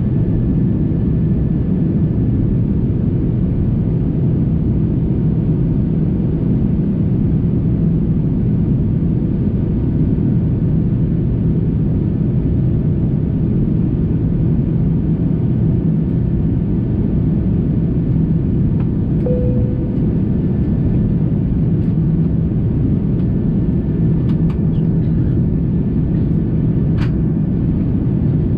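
Steady low roar of engine and airflow inside the cabin of an Airbus A330-300 climbing through cloud after takeoff. A brief single tone sounds about two-thirds of the way through, and a few faint clicks come near the end.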